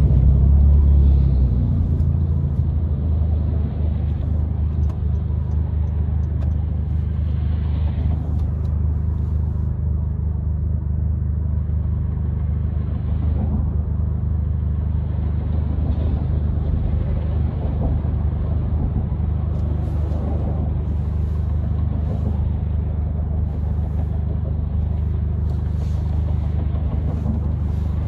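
Steady low engine and road rumble heard inside the cabin of a flash-tuned 9th-generation Honda Civic Si moving slowly. It is a little louder in the first couple of seconds, then holds even.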